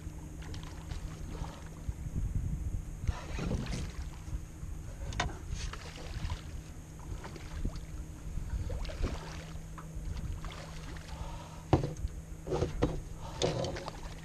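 A hooked redfish thrashing at the surface beside a canoe: scattered splashes and knocks over a low rumble, the sharpest knock near the end.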